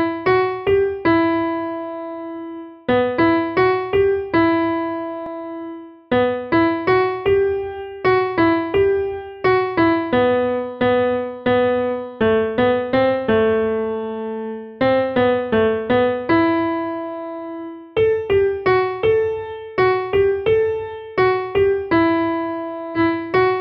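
Solo piano music: short runs of quick notes, each phrase ending on a held note that fades away, with brief pauses between phrases.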